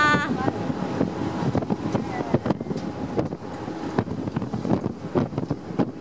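Wind buffeting the microphone on a ferry's open deck, crackling and gusting over the ship's running noise and the sea. A high voice calls out briefly at the very start.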